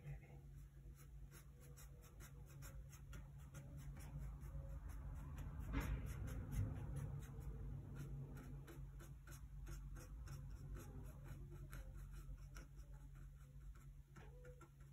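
Flat brush stroking and dabbing oil paint onto a gessoed panel: a faint, irregular scratchy rasp of bristles on the board, over a low steady hum, with a dull bump about six seconds in.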